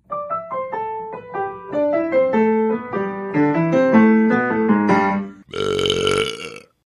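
A short piano melody of quick single notes, then about a second of a loud, rough, burp-like vocal sound effect.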